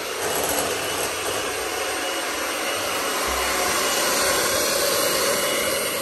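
Electric hand mixer running steadily, its beaters whisking a butter, sugar and egg cake batter in a glass bowl.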